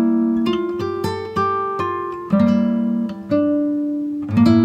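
Background music: acoustic guitar chords, struck about once a second, each ringing out and fading before the next.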